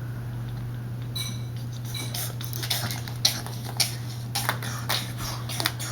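A toy monster truck being driven over Easter eggs: irregular clicking and clattering as its wheels knock and roll over the eggs, growing busier and louder after the first couple of seconds. A steady low hum runs underneath.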